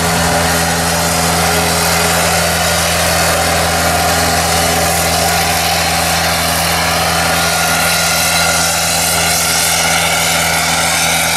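Engine of a Patriot self-propelled crop sprayer running steadily with an even low hum as the machine drives slowly past at working speed.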